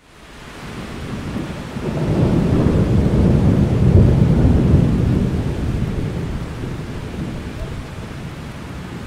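Close thunder with steady rain: a deep rolling rumble builds over the first few seconds, is loudest about four seconds in, then slowly fades while the rain's hiss carries on.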